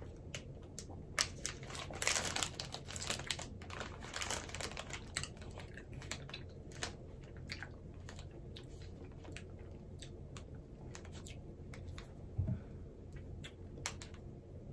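Candy wrapper crinkling and clicking as a Milkybar is opened and handled, densest in the first few seconds, then thinning to scattered clicks with quiet chewing of the chocolate. A soft thump about twelve seconds in.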